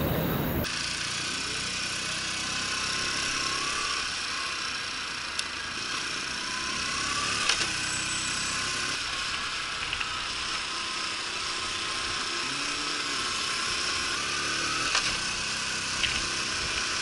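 50cc Honda Super Cub's small single-cylinder four-stroke engine running while the bike is ridden through traffic, picked up by a helmet camera together with wind noise, with a few faint changes in pitch and some light clicks.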